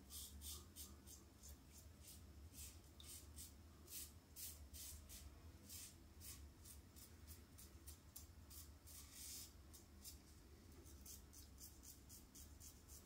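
Faint scraping strokes of a double-edge safety razor, an aluminium razor fitted with a Gillette Rubie Black blade, cutting stubble through shaving cream. The strokes are short and come a few per second with small pauses between them.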